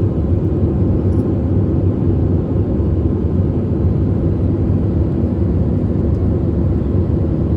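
Steady low rumble of an airliner cabin in flight: engine and airflow noise heard from inside, even and unchanging.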